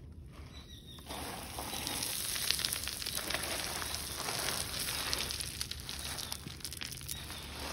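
A hand digging and scraping in loose soil inside a burrow: a dense crackling rustle with many small clicks that starts about a second in and fades near the end.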